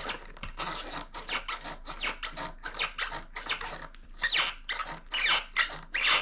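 Woody Press surfskate truck squeaking over and over as the board is worked, with short squeaks several times a second and a few louder, higher squeals near the end. This is the unwanted squeak coming from the truck.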